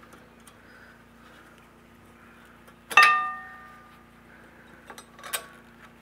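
A single sharp metallic clink with a brief ringing about three seconds in, then a few lighter clicks near the end, as a steel-backed brake pad with its shim is pushed and wedged into the rear caliper bracket.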